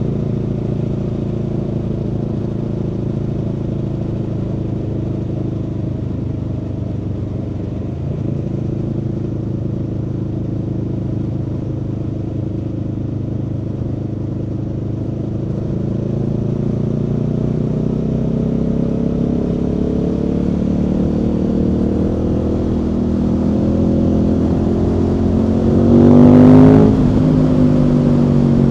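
Aprilia Tuono V4 motorcycle's V4 engine running under way, heard from the rider's seat. The engine note holds steady, then climbs gradually as the bike speeds up, with a brief loud swell near the end after which the pitch drops.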